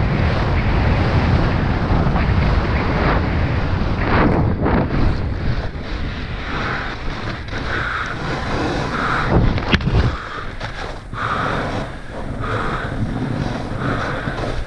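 Wind buffeting the microphone of a body-mounted camera on a fast freeride snowboard descent in powder, with the board hissing and scraping through the snow. There are sharp knocks about four seconds in and again near ten seconds.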